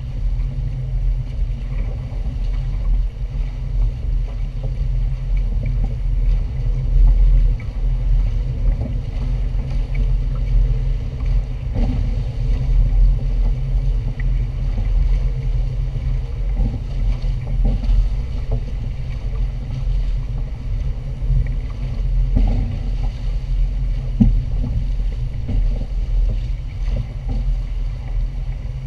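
Wind rumbling and buffeting on the microphone of a pole-mounted camera on a small sailing catamaran under way, mixed with the rush of water along the hulls. The rumble is steady but gusty, with no engine.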